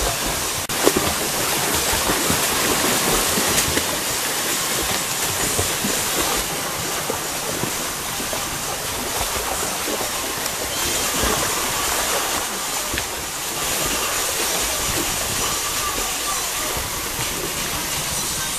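Steady rushing of water from a curtain of water pouring off an arch into a water-park pool channel, with splashing of people wading through it. A single sharp click about a second in.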